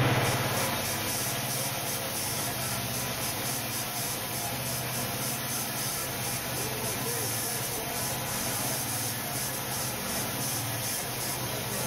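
Band sawmill running steadily: a low engine hum under a constant noisy hiss from the blade.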